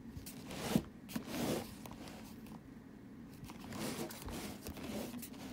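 Cardboard diecast box being handled and turned by hand, its sides scraping and rustling against the hands and the table in a few short scrapes, the loudest about a second in.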